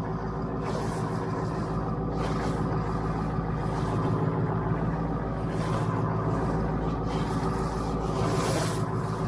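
Ford F-350 pickup truck's engine idling steadily.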